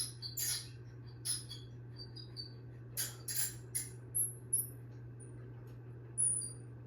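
Westinghouse contractor-design ceiling fan motor running on high with a steady low hum, while short high-pitched chirps and squeaks come and go irregularly over it.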